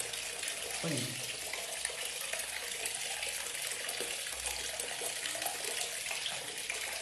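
Tap water pouring from a pipe into a plastic basin, a steady splashing hiss.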